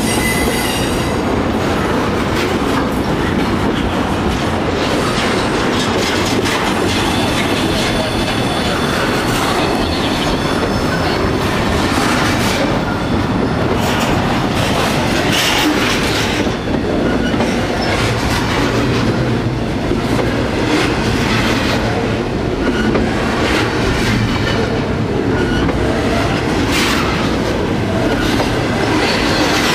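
Double-stack container freight cars rolling past at close range, wheels running over the rails at a steady level.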